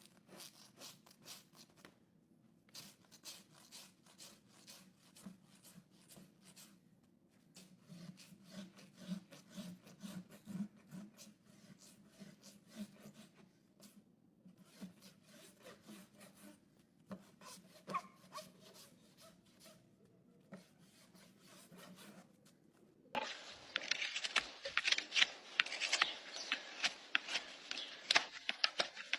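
Hoof trimming tools working on a horse's hoof horn: a run of short, repeated cutting and scraping strokes. About 23 seconds in the sound turns louder, with dense rasping strokes.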